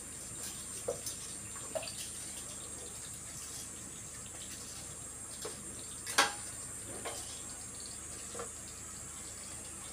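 Wooden spoon stirring spaghetti in a steel pot over a steady watery hiss from the stove, with a few light knocks of the spoon against the pot, the loudest about six seconds in.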